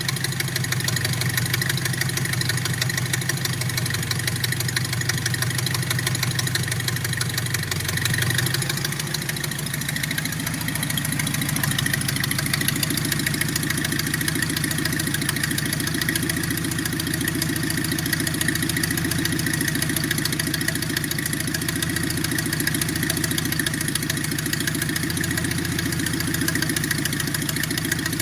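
Nissan 720 pickup engine idling as it warms up after a cold start. Its idle note shifts about nine seconds in, then runs steadily.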